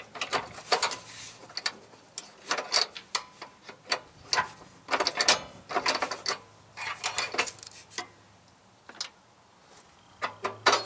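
Metal clicks and rattles as a wavy spring clip is worked off the front bracket pin of an MTD riding-mower deck. It is a quick, irregular run of ticks and scrapes that thins out after about eight seconds.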